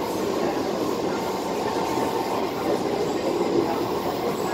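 SMRT Kawasaki C151 metro train running at speed, heard from inside the passenger car: a steady rumble of wheels on rail and running gear, even in level throughout.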